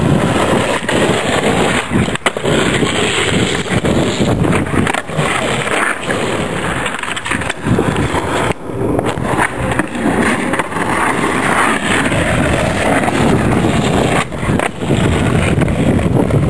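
Skateboard wheels rolling on rough asphalt: a steady rolling noise, with sharp clacks of the board now and then.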